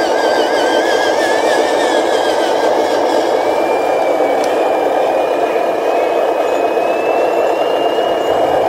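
Radio-controlled dump truck driving: a steady engine-like drone with a thin high whine that climbs slowly in pitch from about three seconds in.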